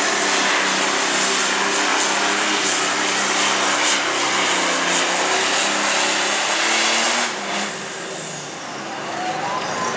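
Light Pro Stock pulling tractor's turbocharged diesel engine running flat out under the load of the weight sled. About seven seconds in the throttle is cut at the end of the pull, and the engine note drops suddenly and falls in pitch as it winds down.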